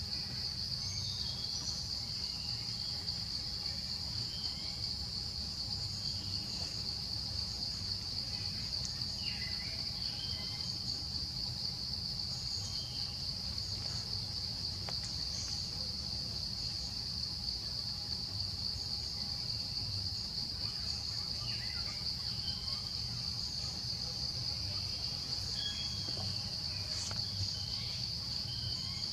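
A steady high-pitched insect drone, with scattered faint short chirps and a low rumble beneath it.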